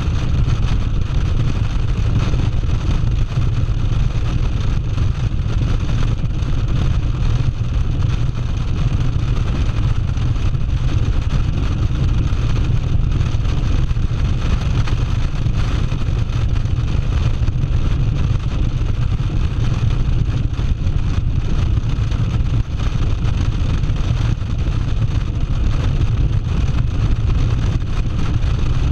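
Cruiser motorcycle running at steady highway speed: a constant low engine rumble mixed with wind rush over the microphone.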